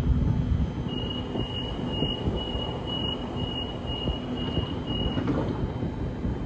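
Door-closing warning of a Sydney Trains Waratah A-set double-deck electric train: a run of short high beeps, about two a second for some four seconds, as the sliding doors close, over a steady low rumble.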